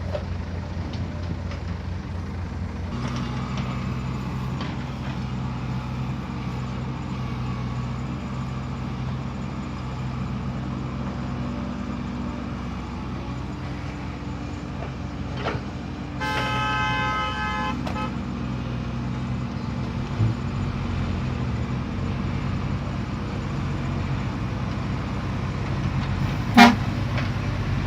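Heavy machinery engines running steadily. Roughly midway a vehicle horn sounds once for under two seconds, and near the end there is a single short, sharp clank that is louder than anything else.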